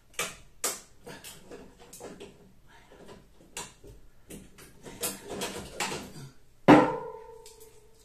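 Knocking, tapping and scraping on the sheet-metal casing of a tumble dryer, a series of sharp knocks that ends in one hard strike near the end, after which the metal rings and fades over about a second. The dented, caved-in top is being worked back into shape.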